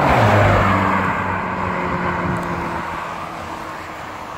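McLaren 720S supercar's twin-turbo V8 driving past close by: its engine note drops in pitch as it goes by, then fades away steadily as the car pulls off down the road.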